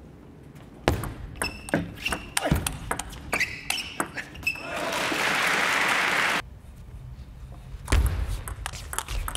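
Table tennis rally: the ball clicks sharply back and forth off the rubber-faced bats and the table, a quick run of strikes, some with a short ringing ping. After about five seconds a burst of audience applause follows, then another rally of ball clicks starts near the end.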